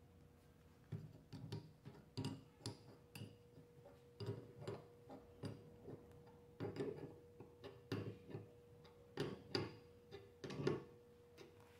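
Small metal clicks and knocks, irregular and a few a second, from a pneumatic fitting being screwed into the steel port of an air cylinder and tightened with a wrench. A thin steady hum runs underneath.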